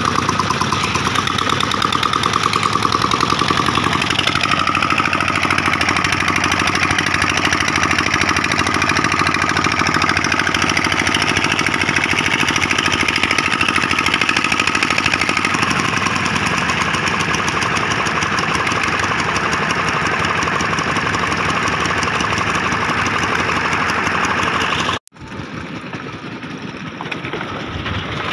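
Engine of a concrete mixer machine running steadily with a fast, even knocking beat. Near the end the sound cuts off abruptly and a quieter engine sound takes over.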